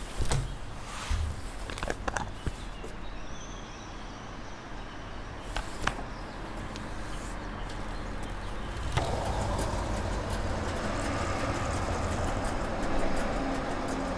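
A few clicks and knocks as the fuel nozzle is handled. About nine seconds in, a steady rushing noise starts abruptly: petrol flowing from the pump nozzle into a scooter's fuel tank.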